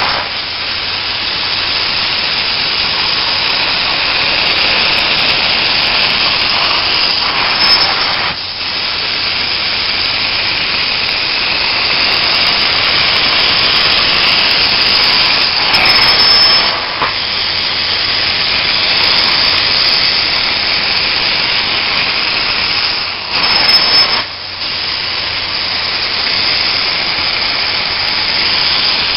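Upholstery wand of a truck-mounted steam cleaning unit rinsing and extracting chair fabric: a loud, steady hissing rush of spray and suction. It breaks off briefly three times, about 8, 16 and 24 seconds in.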